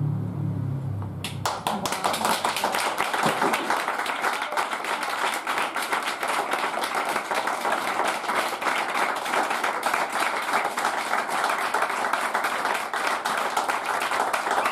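Audience clapping breaks out about a second in, as a few low held tones die away, and carries on densely as sustained applause.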